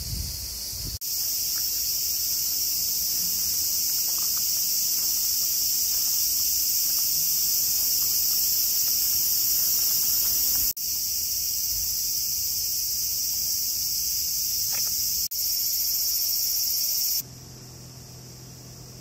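Loud, steady, high-pitched insect chorus shrilling without a break. It changes abruptly a few times and drops off sharply near the end.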